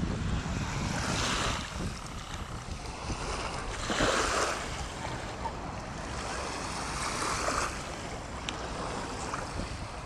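Small sea waves lapping on a sandy shore, the wash swelling about every three seconds, with wind rumbling on the microphone.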